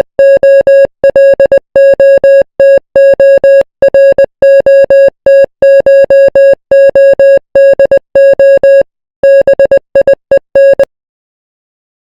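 Morse code sent as a single-pitched electronic beep, short dots and longer dashes keyed in quick groups with brief gaps between them, stopping near the end.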